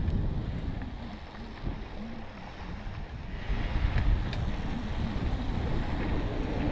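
Wind buffeting the microphone over the rumble of mountain bike tyres rolling down a dirt singletrack, with a few sharp clicks from the bike.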